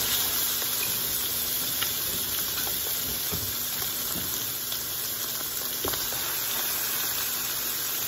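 Chicken leg quarters searing skin-down in bacon grease in a hot skillet: a steady sizzle with occasional pops of spitting fat.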